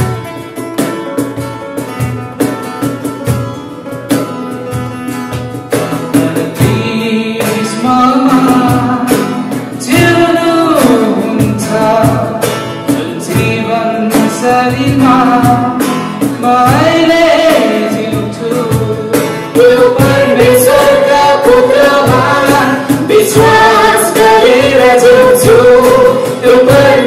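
Live acoustic guitar strumming, with a man singing a Nepali Christian worship song over it from about six seconds in. A woman's voice joins later and the music grows louder.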